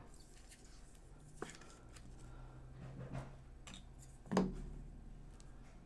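A trading card slid into a rigid clear plastic top loader: faint plastic scrapes, rubs and small clicks of handling, with one louder knock about four and a half seconds in.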